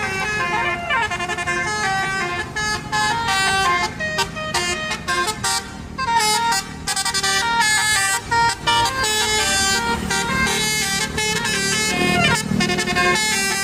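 A bus's Basuri telolet horn, a multi-trumpet musical air horn, playing a melody of stepped, overlapping tones with short breaks between phrases, over the low rumble of the bus's engine.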